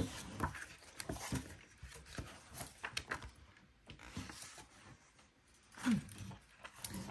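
Quiet, irregular rustling and small clicks of paper and materials being handled at a table, with a brief voice sound about six seconds in.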